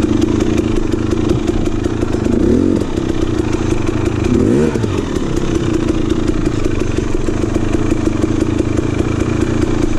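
KTM 300 XC two-stroke dirt bike engine running at low revs as the bike creeps down a steep trail, with two short blips of the throttle about two and a half and four and a half seconds in.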